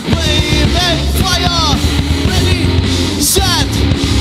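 Live punk rock band playing: electric guitar, bass and drums together at full volume, with a melody line bending up and down in short repeated arcs, heard as a direct mixing-desk feed.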